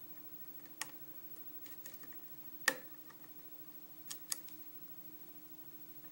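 A handful of small, sharp, spaced-out clicks of a lock pick and tension wrench working the pin tumblers inside a 6-pin Arrow lock cylinder. The loudest click comes about two and a half seconds in, and a close pair follows near the end, over a faint steady hum.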